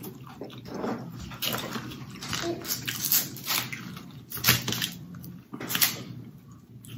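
Close-up wet eating sounds of sauce-covered snow crab: ongoing slurping and chewing, with four louder wet smacks spaced about a second and a half apart.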